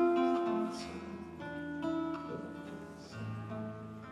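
Classical guitar playing, with notes and chords ringing and changing every half second or so. It is loudest at the start and grows quieter toward the end.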